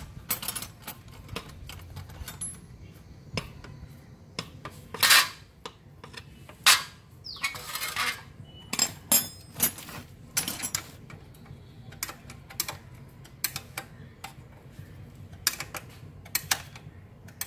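Socket wrench clicking as an exhaust clamp is tightened, with irregular metal-on-metal clinks of tools against the stainless pipe and clamp, and a few louder clanks partway through.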